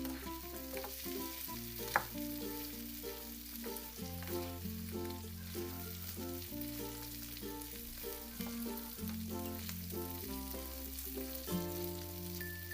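Food sizzling as it fries in a miniature pan, a steady hiss, over light background music with a bass line that changes note every second or so.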